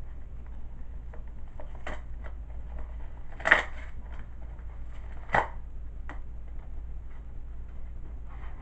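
Hands opening a mailing package: scattered rustling and small clicks of packaging being handled, with two louder sharp snaps or knocks about three and a half and five and a half seconds in, over a steady low hum.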